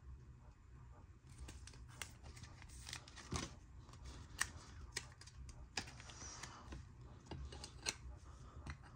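Faint, scattered clicks and light plastic rustling of trading cards being handled and slid into plastic sleeves and card shells.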